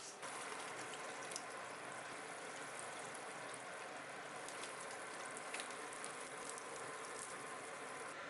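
Daikon dinner dishes cooking on the stove: a steady sizzling hiss that starts just after the beginning, with a few light clicks on top.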